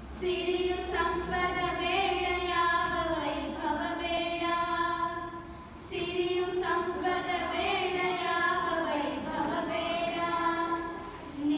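Girls singing a song together in unison without accompaniment, with long held notes. The singing dips briefly about halfway and then picks up again.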